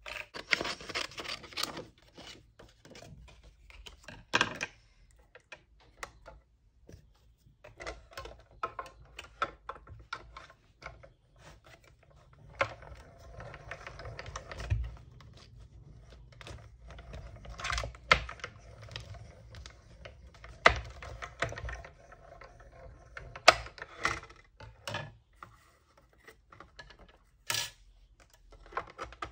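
Stampin' Up mini die-cutting machine in use. Plastic cutting plates and a metal die are handled with clicks and taps, then cranked through the rollers by hand with a steady low rumble over several seconds in the middle. Paper rustles lightly near the end as the cut piece comes off the die.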